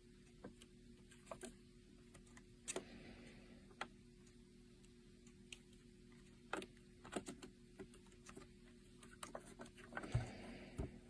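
Faint, irregular clicks and light taps at uneven spacing, over a low steady hum. A cluster of sharper clicks comes about a second before the end.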